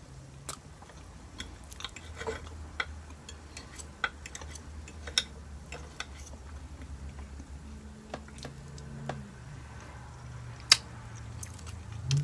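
Eating sounds: cutlery clicking and scraping on a plate between quiet chewing, over a faint low hum, with one sharper clink near the end.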